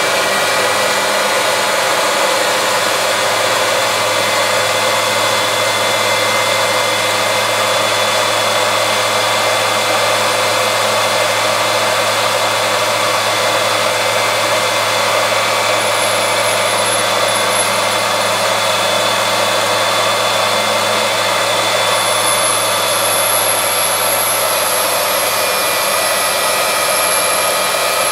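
Valve refacing machine grinding the 45-degree face of a Mopar 440 big-block valve, the valve spinning in the chuck against the stone wheel: a steady grinding hiss with a constant whine.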